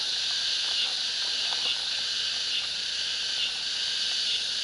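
Steady chorus of insects chirping, a continuous high-pitched drone with faint repeated chirps.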